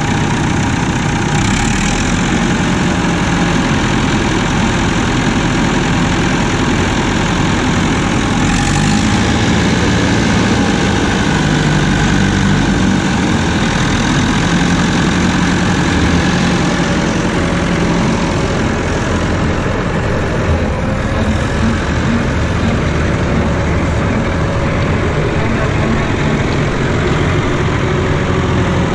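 Massey Ferguson 65 tractor engine running steadily, its pitch drifting up and down a little.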